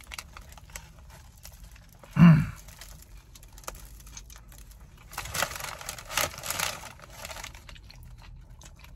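A person eating a bite of a steak and cheese sub: chewing, with a short hummed "mm" that falls in pitch about two seconds in. There are crinkling, crackly noises between about five and seven seconds in.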